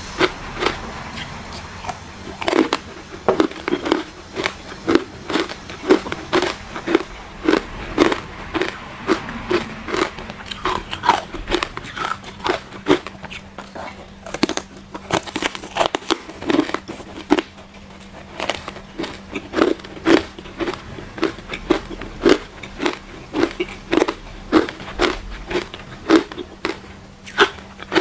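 Ice being bitten and chewed close to the microphone: repeated crunching, with sharp cracks coming about once a second. A faint steady hum runs underneath.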